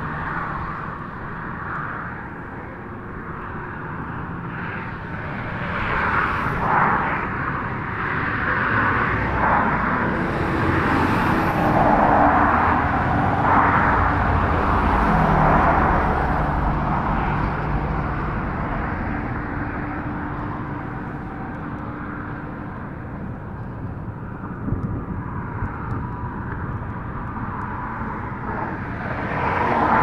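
Engine noise in outdoor ambience, swelling to its loudest around the middle and slowly fading away.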